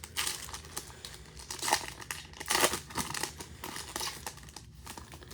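A pack of trading cards being torn open: the wrapper crinkles and rips in irregular bursts, loudest near the middle.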